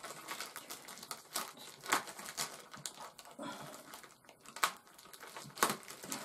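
Packaging crinkling and rustling as a boxed brass tumbler is unwrapped, with a few sharp clicks and snaps scattered through it.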